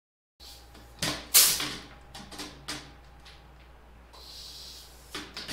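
Riveting on an aluminium aircraft spar: two sharp metallic hits about a second in, the second a short loud burst from the rivet gun, followed by lighter clicks and clatter of tools and parts. A brief hiss comes in around the fourth second, and a few more clicks follow near the end.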